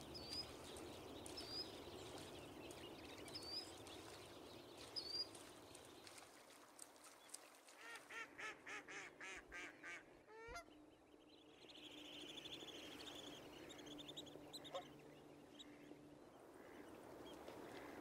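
Faint water-bird calls: short high chirps repeating every second or two, then about two-thirds of the way through a quick run of about eight repeated calls, some four a second, followed by scattered higher calls.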